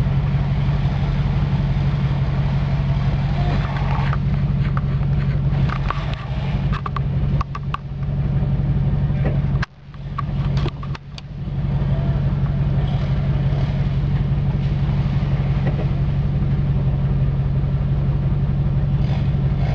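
Land Rover Discovery engine running steadily, heard from inside the cabin as it crawls along a muddy trail, with scattered knocks a few seconds in. The sound dips sharply for a moment about halfway through.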